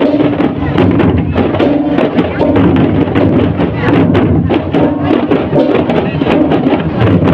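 Live percussive music: rapid, dense strikes over steady pitched notes, played continuously.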